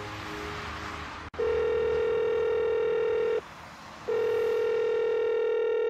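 Faint background noise, then a click about a second in, followed by a telephone ringing tone on the line as a call goes through: two long beeps of about two seconds each, with a short gap between them.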